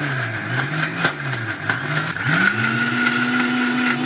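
Sujata Dynamix mixer grinder running, grinding a wet paste of roasted coconut and spices with tamarind water. It gives a steady high whine over a lower hum that wavers, then rises a little over two seconds in and holds steady.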